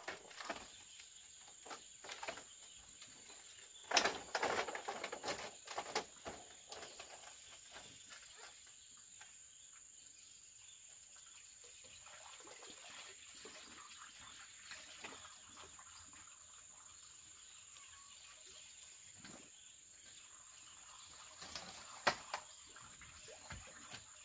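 Insects trilling steadily at a high pitch, with scattered knocks and rustles of handling, busiest about four to six seconds in and with one sharp knock near the end.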